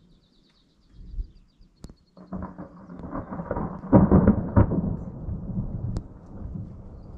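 Thunder from a passing thunderstorm: a low rumble starts about two seconds in, swells to its loudest crack-and-roll about four seconds in, then keeps rolling.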